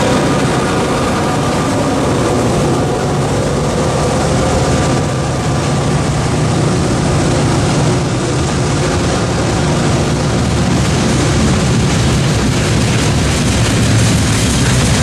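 Freight train passing close by: the diesel engine of the trailing EMD GP38-2 locomotive fades in the first second or so. After it comes a steady rolling rumble of the cars' steel wheels on the rails.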